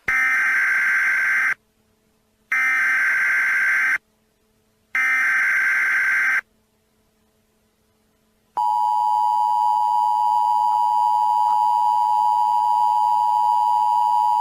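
Emergency Alert System tones: three raspy bursts of the SAME digital header, each about a second and a half long with short gaps between them. After a pause of about two seconds, the steady two-tone EAS attention signal begins and holds.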